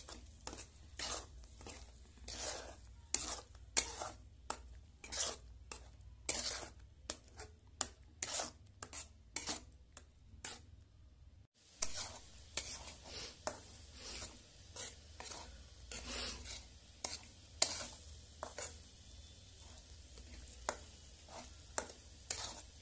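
A spatula scraping and knocking against a pan as the egg bhurji is stirred and broken up, one or two strokes a second, over a low sizzle. The strokes break off briefly about halfway through.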